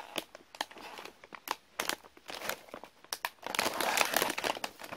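Plastic snack bag being handled and crinkled in the hands: a run of sharp crackles that grows denser and louder from about three and a half seconds in.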